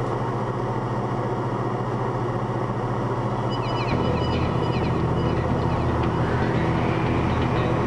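Light aircraft's engine droning steadily inside the cabin. About halfway through it grows louder, with more low rumble, as power is added.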